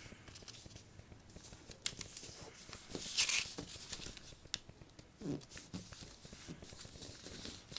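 Sheet of paper being handled and folded by hand: soft rustles and crinkles, with a louder swishing swipe about three seconds in.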